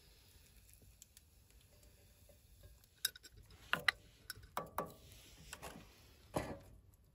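Light clicks and knocks of cooking utensils on metal cookware, a wooden spoon stirring and tapping in a metal mug and a spoon against a steel frying pan, starting about three seconds in as a loose run of separate taps.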